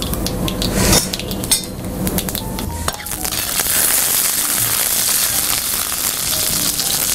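Mustard seeds, chana dal and urad dal frying in hot oil in a brass kadai and stirred with a metal spoon: crackling pops at first, turning into a steady sizzle from about three seconds in.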